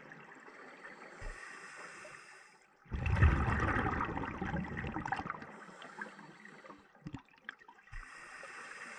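Underwater scuba breathing through a regulator: a hiss as the diver breathes in, then a loud rush of exhaled bubbles about three seconds in, followed by another breath in. A few knocks and water sounds come near the end.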